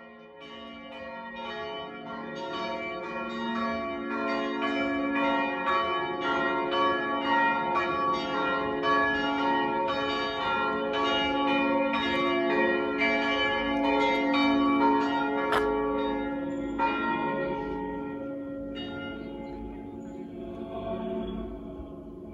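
Church bells ringing, several pitches struck in quick succession over a lingering hum. They swell in over the first few seconds, and the strikes stop about three quarters of the way through, leaving the ringing to die away.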